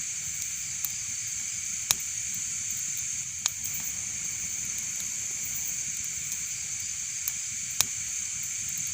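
Fireplace fire burning with a steady hiss and five sharp crackling pops scattered through it, the loudest about two seconds in and near the end.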